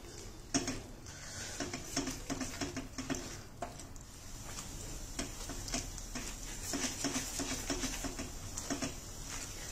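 Spatula stirring thick, bubbling jaggery syrup in a wok, with many soft, irregular ticks and scrapes against the pan over a faint hiss. The jaggery is being cooked down on the flame toward the brittle setting stage for sesame brittle.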